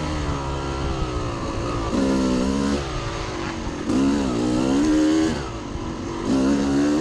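2000 Yamaha YZ250 two-stroke single, fitted with an FMF Fatty pipe and Turbinecore 2 silencer, running under load, its note rising and falling repeatedly as the throttle is opened and closed. It eases off briefly a little past five seconds in, then picks up again.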